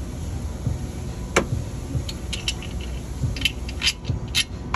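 Small metal parts clinking and rattling as they are handled, several sharp clinks with a cluster in the second half, over a low steady rumble.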